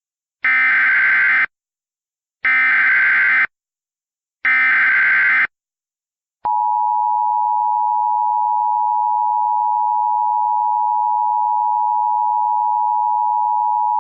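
Emergency Alert System SAME header: three one-second bursts of digital data tones, a second apart. About six and a half seconds in, the steady two-tone EAS attention signal (853 and 960 Hz) starts, the tone sequence that opens a broadcast emergency alert.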